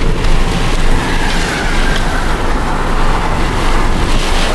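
Loud, steady rush of strong wind buffeting the microphone at the open side of a moving vehicle close to a tornado, with a low rumble underneath.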